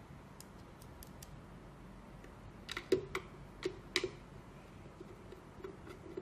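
Light clicks and taps of a cross-head screwdriver and a small screw against a self-balancing scooter's plastic shell as the screw is set in place and driven in, with a quick cluster of about six sharper clicks in the middle.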